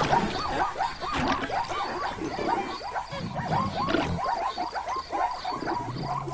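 Animated zebras calling as a herd: many short yelping calls overlap, several a second.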